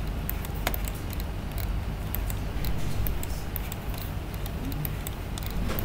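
Irregular light clicks and ticks from a computer mouse, its buttons and scroll wheel, over a steady low hum.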